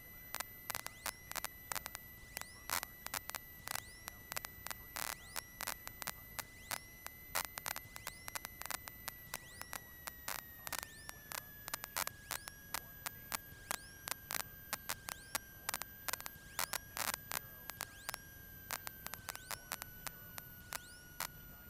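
Faint static on the aircraft's radio and intercom audio feed: irregular crackling clicks over a light hiss, with a thin electrical whine that steps slightly lower in pitch about halfway through and again near the end.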